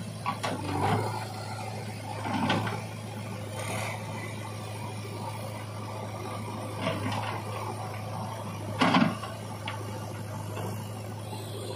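JCB 3DX backhoe loader's diesel engine running with a steady hum while the backhoe bucket digs into clods of dried pond mud, giving several sudden thuds and scrapes; the loudest comes about nine seconds in.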